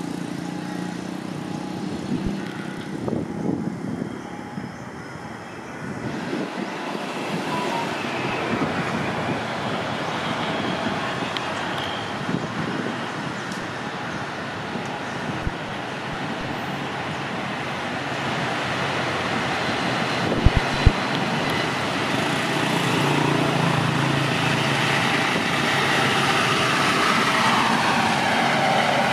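KiHa 183 diesel multiple unit running past on the track, its diesel engines and wheels on the rails making a steady rumble that grows louder as it comes close near the end. A couple of sharp clicks come about two-thirds of the way through.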